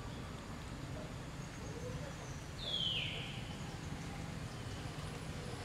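A single high animal call, about half a second long, sliding down in pitch a little before halfway through, over a steady low rumble.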